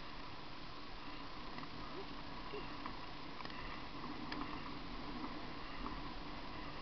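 Steady, muffled rolling and wind noise from a bicycle ridden on pavement, heard through a helmet camera's housing, with a few faint ticks.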